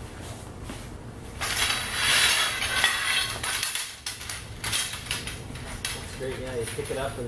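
Metal frame poles of a TRAK folding kayak clattering and clinking against each other as they are handled and fitted together. The rattling is loudest for about two seconds starting around a second and a half in, then lighter clinks follow.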